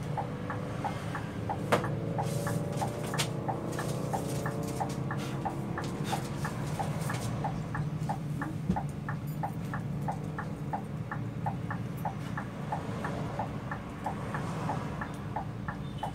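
Cabin sound of a Scania K 360 IB coach on the move: the engine drone is steady, with a faint tone rising in pitch over the first several seconds as it gathers speed. Over it, a light regular clicking goes on throughout at about two to three clicks a second.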